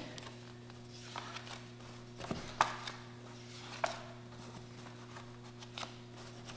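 Photos and papers being flipped and handled in a cardboard box during a search, giving a few sharp taps and rustles, the loudest about two and a half seconds in, over a steady low hum.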